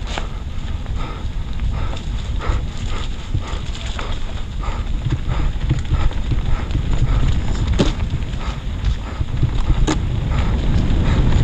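Norco Aurum downhill mountain bike ridden down a wet, muddy trail: a steady low rumble of wind and terrain on the mic, with quick rhythmic knocks and rattles from the bike over bumps.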